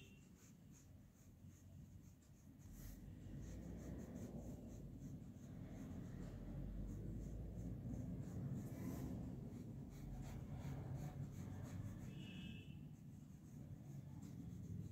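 Flat paintbrush stroking fabric paint onto cloth stretched taut in an embroidery hoop: faint, repeated scratchy brushing.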